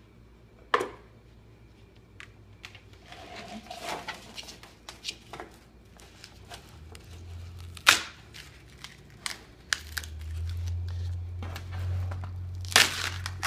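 Foil-faced foam insulation block being pried and torn off a luan panel by hand, the foam crackling and crunching in short bursts with a few sharp snaps. The foam breaks apart and leaves its foil face glued to the wood: the adhesive bond holds. A low steady hum comes in about two-thirds of the way through.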